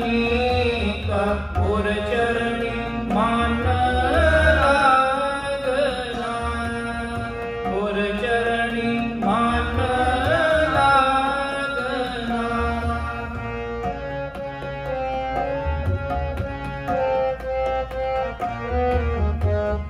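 Sikh kirtan on two harmoniums and tabla, with a voice singing over them. The singing stops about two-thirds of the way through, and the harmoniums and tabla play on.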